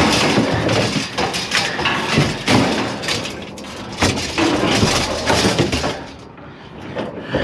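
A heavy metal refrigerator cabinet being shoved and walked into place, with repeated scraping and clunking of metal on metal. It eases off about six seconds in.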